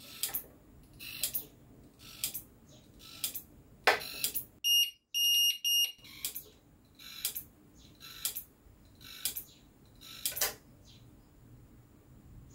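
Nemtek Wizord 4 electric fence energizer ticking with each output pulse, about once a second. Midway its alarm gives three short high beeps, the alarm that signals faults on the fence wire. The ticking stops near the end.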